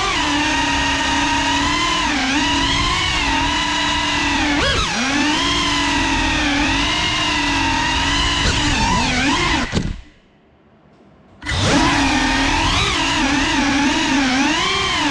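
Geprc FPV quadcopter's brushless motors and propellers whining, the pitch rising and falling with the throttle, heard through the onboard GoPro. About ten seconds in the pitch drops and the motors go almost silent for a second and a half, then spool straight back up.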